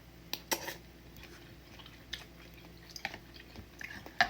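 A person chewing udon noodle soup close to the microphone, with a scattering of short, wet mouth smacks; the sharpest come about half a second in and near the end.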